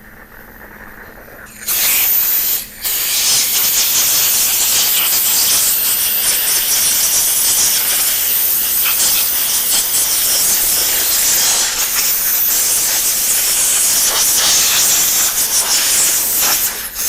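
A pressurised cleaning jet hissing steadily on a headlight part, starting about a second and a half in with a brief break just after, then held on.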